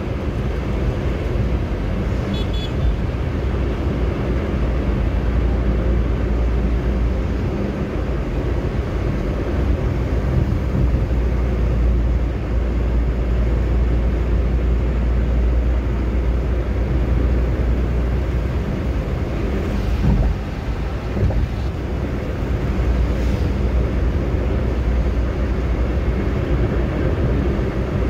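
Steady low rumble of a car driving at highway speed, heard from inside the cabin: tyre and road noise with the engine underneath.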